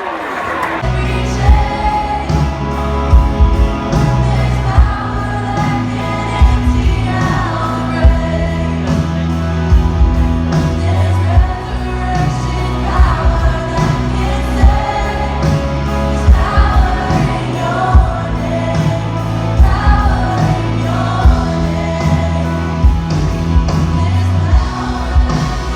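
Background pop song with a sung vocal over heavy bass and a steady beat.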